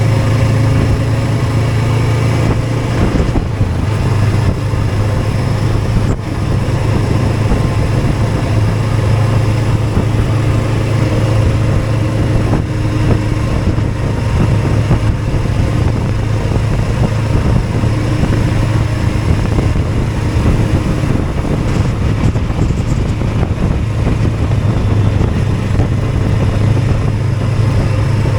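Motorcycle running steadily, a constant low engine drone under a broad rushing noise.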